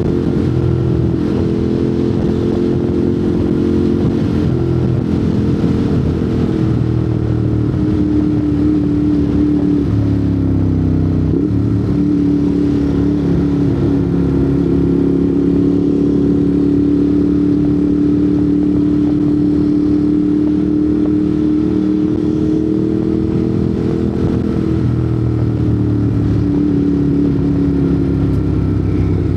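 Ducati Monster 821's L-twin engine through a Termignoni exhaust, running steadily under way at a fairly constant engine speed. The pitch eases down slightly about ten seconds in and again near the end.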